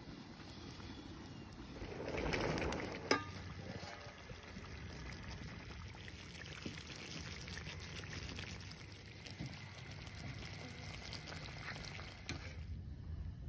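Ladle pouring tomato sauce into a pot of stuffed vegetables, with a sharp metal clink about three seconds in, followed by a steady hiss with small crackles from the wood fire and simmering pots.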